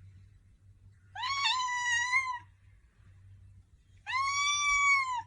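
A cat meowing twice: two long, drawn-out meows, the second cut off abruptly.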